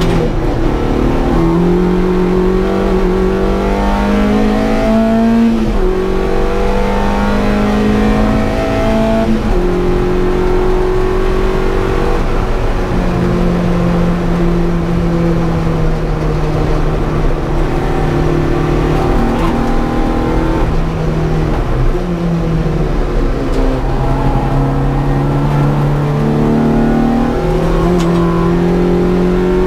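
Opel Corsa's C20XE 2.0-litre 16-valve four-cylinder engine at high revs, heard from inside the cabin. It pulls hard up through the gears, the note climbing in each gear and dropping at each upshift in the first ten seconds or so, then settles before a downshift about two-thirds of the way in.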